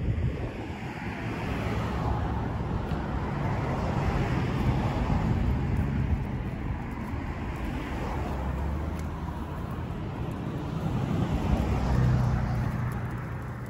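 Road traffic passing close by, a continuous rumble of tyres and engines that swells as vehicles go past, loudest near the end.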